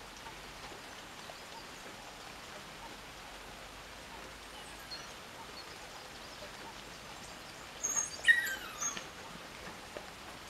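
A brief cluster of high chirping calls about eight seconds in, the loudest moment, over a steady outdoor hiss.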